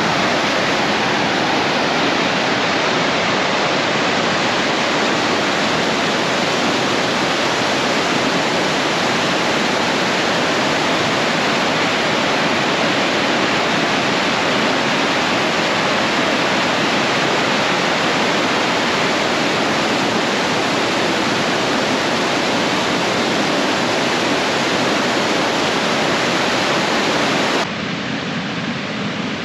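Steady rush of whitewater pouring over a low river dam's spillway. Near the end it drops to a quieter, steady river rush.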